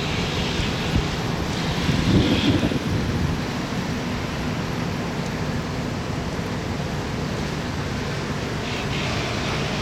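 Strong wind buffeting the microphone as a steady low rumble, with gusts rustling the foliage in short spells; the strongest gust comes about two seconds in.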